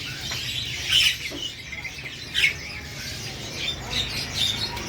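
A sunbird (the small nectar-feeding bird called 'kolibri' in Indonesia) giving short, sharp chirps about a second apart, several of them quick notes that drop in pitch, over a low steady hum.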